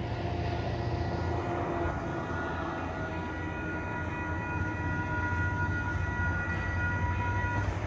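Metro-North Brookville BL20GH diesel locomotive pulling a train away from a station, a steady low rumble. Several steady high ringing tones run alongside and stop near the end.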